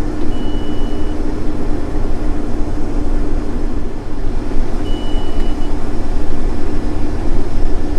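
Combine harvester running while cutting soybeans, heard from inside the cab: a steady drone with a constant hum.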